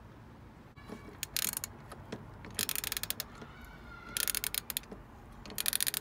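Ratchet wrench clicking in four short runs, about every second and a half, as it is swung back and forth on an extension bar and 22 mm deep socket to undo the reverse light switch on the gearbox.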